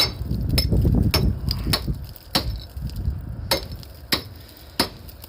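Hammer blows chipping out cracked precast concrete around rusted steel rebar: about eight sharp strikes, a little more than half a second apart, with a short pause midway.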